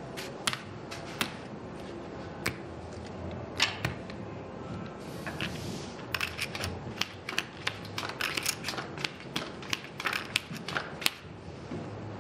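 Casino chips clicking together and playing cards being handled on a blackjack table: scattered sharp clicks that come thicker in the second half, with a brief swish of cards about five seconds in.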